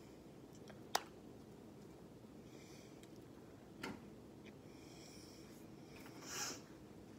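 Quiet room tone in a small room, broken by a sharp tap about a second in and a softer one about three seconds later. Near the end comes a short breath out.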